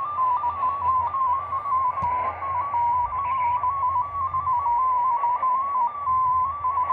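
Digital-mode data signal from the loudspeaker of a Degen DE1103 shortwave receiver tuned to 7094 kHz: a single tone hopping quickly among a few nearby pitches in a steady warble, over band hiss. The operator takes it to be probably MFSK32.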